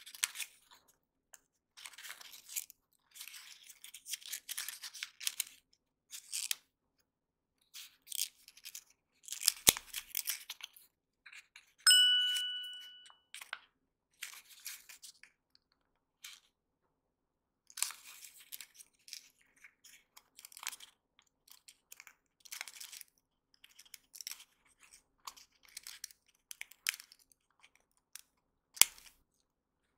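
Origami paper rustling and crinkling in short, irregular bursts as hands fold and tuck its flaps, with a few sharp clicks of the paper. A single ringing chime sounds about twelve seconds in and fades over a second or so.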